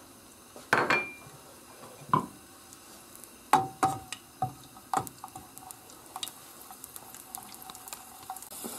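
A wooden spoon knocks and scrapes against a non-stick frying pan as garlic cloves are pushed around in hot olive oil; there are several sharp knocks, some with a short ring. In the second half the garlic starts frying, with faint sizzling crackles and a rising hiss.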